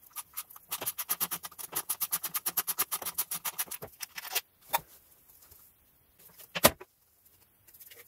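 Hand ratchet clicking rapidly, about ten clicks a second for some three seconds, then a single sharp metal knock, the loudest sound, near the end.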